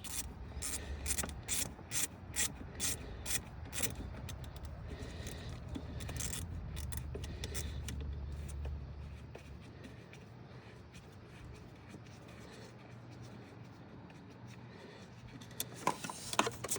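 A 1/4-inch ratchet with a T30 Torx socket clicking in a quick regular run, about three to four clicks a second, as a transmission-line bolt is backed out, followed by scattered clicks and rubbing from handling the tool and fittings.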